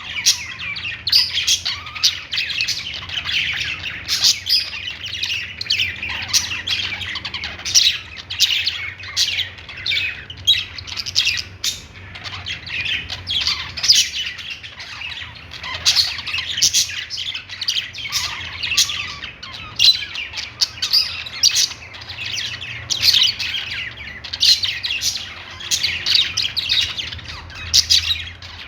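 Budgerigars chirping and warbling: continuous busy chatter of high chirps, squawks and sharp clicks from several birds. A faint low hum runs underneath.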